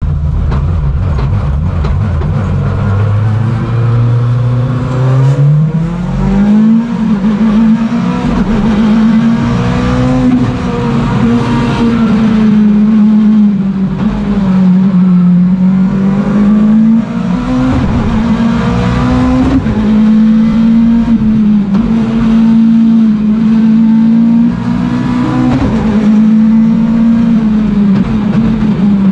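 Ford Fiesta S2000 rallycross car's 2.0-litre naturally aspirated four-cylinder, heard loud from inside the cockpit as it accelerates hard onto the lap. The revs sit low for the first few seconds, climb steeply, then rise and fall over and over as the driver works through the corners.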